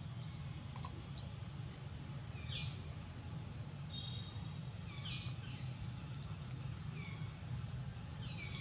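An animal calling: four short, high-pitched calls that slide downward in pitch, about every two seconds, over a steady low rumble of background noise.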